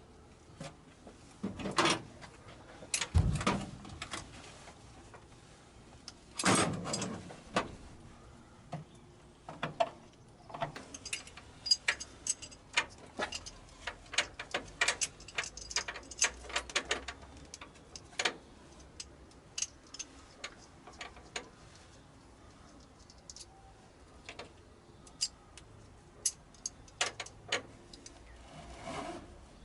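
Irregular clicks, taps and light metallic clinks of hand work with tools and metal fittings, with a few heavier knocks and one low thud in the first several seconds and a busy run of small clicks through the middle.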